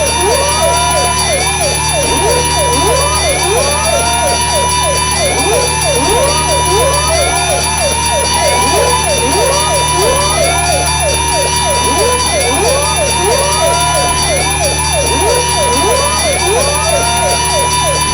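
Looped synthetic sound effect of overlapping rising pitch sweeps, siren-like, repeating about every two seconds, over a steady low hum from a drum beat programmed at 2741 beats per minute.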